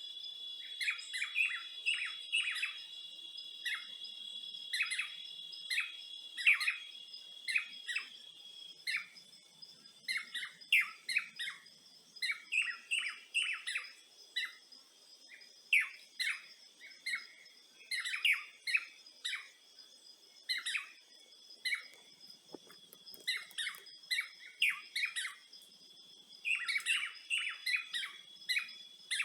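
Wild birds calling in quick, short chirps again and again, over a steady high-pitched insect trill; the loudest insect tone weakens about nine seconds in.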